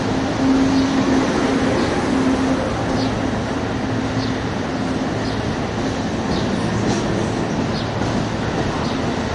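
Amtrak Silver Star passenger cars, including Viewliner sleepers, rolling past close by as the train pulls out of the station: a steady rumble of steel wheels on rail. Faint regular clicks run through it and come slightly faster as the train gathers speed.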